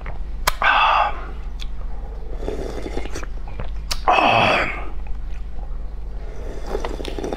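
A person slurping and gulping hot and sour noodle broth from a paper bowl, with a loud breathy exhale about four seconds in and a few wet mouth clicks.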